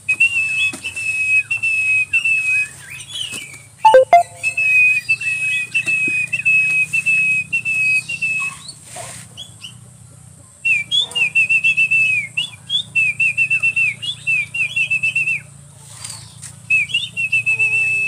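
A person whistling through pursed lips: phrases of short, quickly repeated high notes, some flicking upward, with brief pauses between phrases. A sharp knock about four seconds in.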